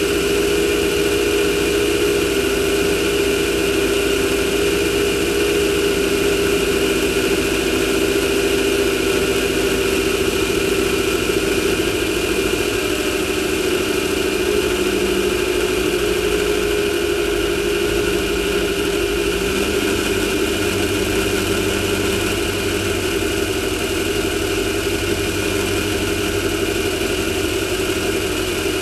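Air-cooled VW 1600 engine of a Class 1600 off-road race car running steadily, holding an even pitch with small shifts along the way.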